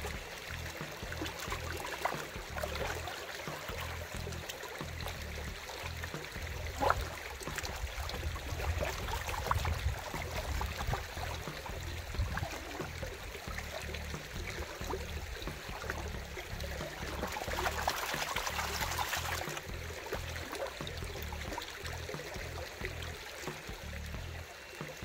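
Water sloshing and trickling as a pan of shoveled creek gravel is washed for gold, with a couple of sharp clicks. The washing grows louder for about two seconds near the three-quarter mark.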